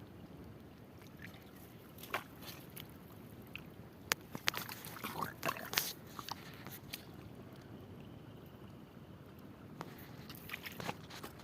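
Scattered clicks, scrapes and small splashes of water, bunched together about four to six seconds in and again near the end, over a low steady background.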